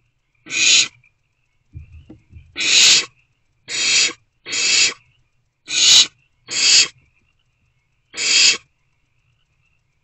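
Barn owlets making rasping, hissing 'snore' calls, the begging call of young barn owls: seven separate breathy rasps about half a second each, spaced irregularly. There are a few soft low thumps about two seconds in.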